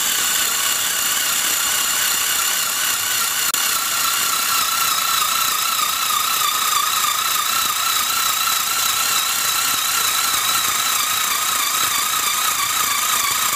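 Zeus 3.6-volt cordless screwdriver's motor running under load as its drill bit bores through two stacked layers of 3/4-inch plywood. It gives a steady high whine that dips slightly in pitch as the bit bites in, then wavers. It keeps cutting through both layers.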